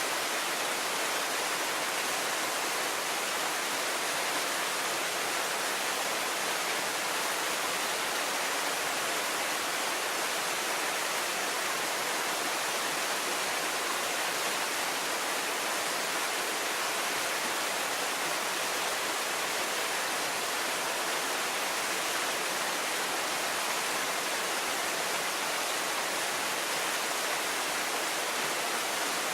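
Small waterfall, about 4 m high, splashing steadily: a constant even hiss of falling water.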